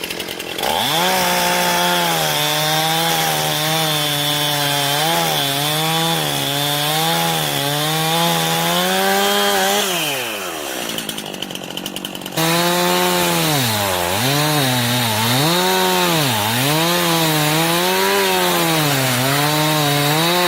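Two-stroke chainsaw cutting the directional notch into a standing tree, its engine pitch dipping and recovering repeatedly as the chain bites under load. About halfway through it drops back toward idle, then is abruptly at full cut again, bogging down in deeper dips about once a second.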